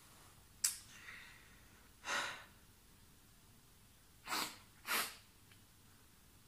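A person's sharp, noisy sniffs and breaths, four short ones, the first a sudden intake.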